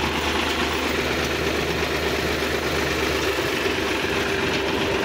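Sonalika DI-745 III tractor's diesel engine idling steadily.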